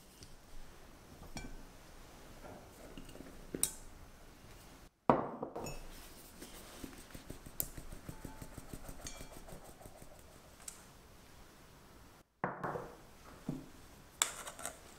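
Kitchen sounds close to the mic. A glass mixing bowl clinks, then a fine metal mesh sieve is tapped and shaken over the glass bowl to sift flour, with soft rasping and a run of evenly repeated light taps. Two abrupt cuts break it, each followed by a louder knock.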